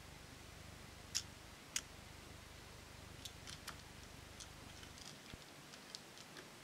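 Faint clicks and ticks of a small die-cast Tomica toy car being handled and set down on a playmat: two sharper clicks about a second in, then a scatter of lighter ticks.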